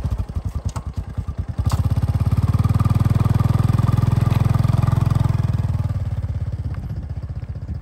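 Honda underbone motorcycle's small single-cylinder four-stroke engine running with an even pulsing note, revved higher about two seconds in and held, then easing off near the end.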